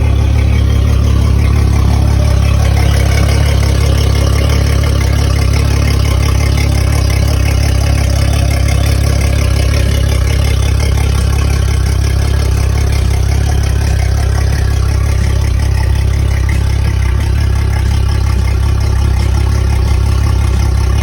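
Mercury 400 Verado outboard engine running steadily, a loud low drone that holds even throughout, after its driveshaft seal and oil pan gasket have been replaced.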